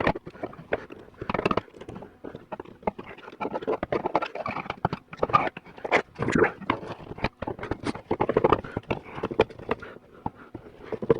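Irregular clicking, knocking and scraping of metal parts as a Tuned Port Injection fuel rail is worked and pried apart by hand.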